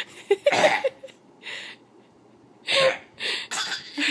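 A man and a baby trading short, playful coughs, about four bursts in all, with a few brief small squeaks from the baby near the start.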